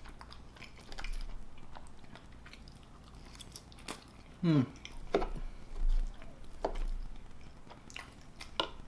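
Close-miked chewing of chili cheese fries, with scattered short mouth clicks and a brief voiced sound that falls in pitch about four and a half seconds in.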